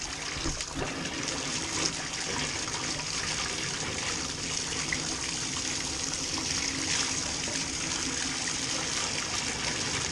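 Water pouring steadily from a Moen tub spout into a bathtub, splashing into the tub, with the faucet on its new cartridge running while the hot and cold sides are checked.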